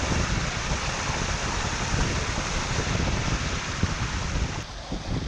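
Small waterfall on a rocky mountain stream rushing steadily, with wind buffeting the microphone; the rush drops back near the end.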